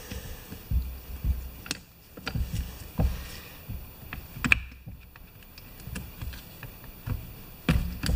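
Metal-on-metal handling at a lawn tractor transaxle shaft: a hand tool and loose parts clicking, tapping and scraping irregularly, with dull knocks from the housing. The sharpest click comes about four and a half seconds in.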